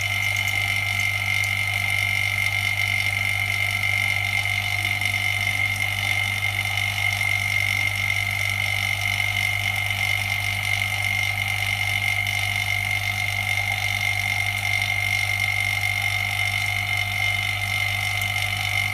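Phone LCD separator machine running steadily, with a constant low hum and a high, even whine.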